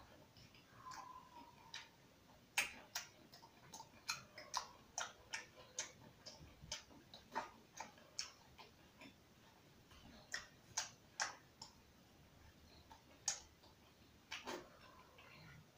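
Mouth noises of a man eating rice and chicken curry with his hand: a run of short, irregular wet clicks from chewing and lip-smacking, at times about two a second.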